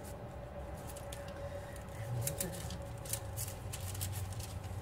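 Wax paper and aluminium foil crinkling as a burrito is folded on them, a run of crisp rustles starting about two seconds in, over a steady low hum.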